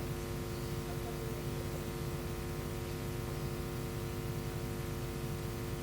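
Steady electrical hum with several fixed tones over a constant hiss, the background noise of a microphone and sound system left open, with no other clear sound.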